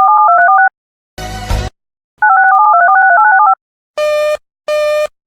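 Touch-tone (DTMF) dialing: two quick runs of paired tones, with a short burst of static between them. From about four seconds in, a repeating telephone beep like a busy signal comes on, roughly 0.4 s on and 0.3 s off.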